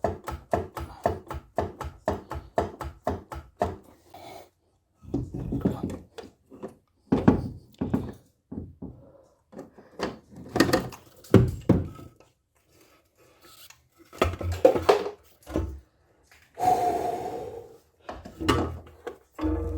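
Wooden block knocking against the cylinder head of an Alfa Romeo 33's flat-four engine to break it free from the engine block, where it is stuck. There is a quick, even run of knocks, about four a second, for the first few seconds, then slower, irregular knocks with some rubbing and scraping.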